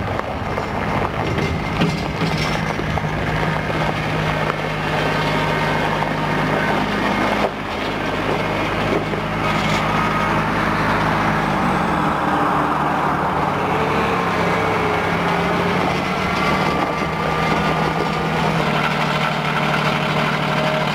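Massey Ferguson 1533 compact tractor's diesel engine running steadily as the tractor drives, its pitch stepping down slightly about twelve seconds in and shifting again near the end.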